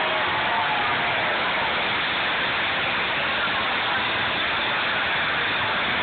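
School buses racing past on an oval track, their engines heard as a steady, dense wash of noise with no distinct pitch.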